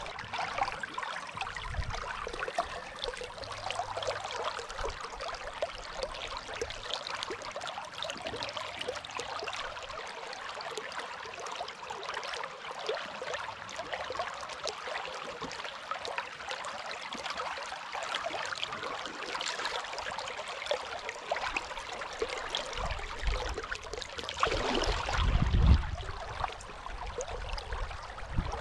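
Dunajec river water rushing and splashing steadily. About 25 seconds in, a brief louder low rumble swells over it.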